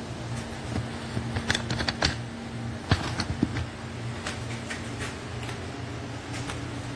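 A run of light clicks and taps, clustered in the first half, over a steady low electrical hum.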